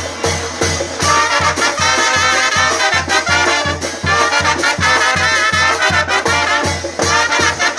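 Mexican brass banda playing a son: trumpets and other brass holding wavering notes over a steady bass beat of about three pulses a second.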